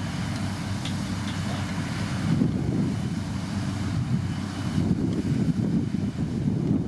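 Diesel engine of a heavy motor grader running steadily.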